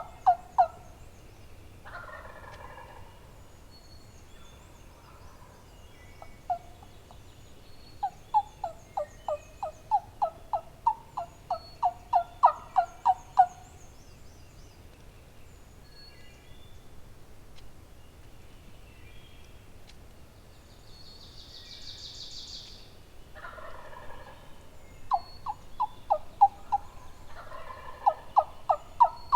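Wild turkey gobbler gobbling about three times, each a short rattling gobble, between long runs of rapid hen-turkey yelps at about four notes a second. Small songbirds chirp faintly behind.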